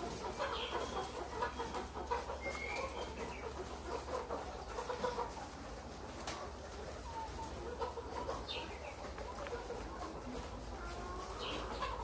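Many caged brown laying hens clucking and calling, short scattered calls, some rising in pitch, with scattered clicks and a steady low hum underneath.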